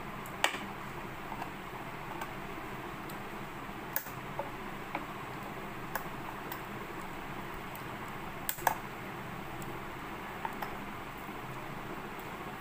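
Irregular light clicks and taps of a steel ruler being handled against a wooden desk lid, the loudest near the start and two close together about two-thirds of the way through, over a steady low room hum.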